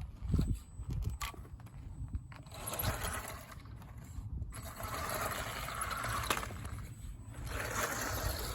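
Small RC car's electric motor and gears whirring as it drives, with a short pause about seven seconds in before it starts up again.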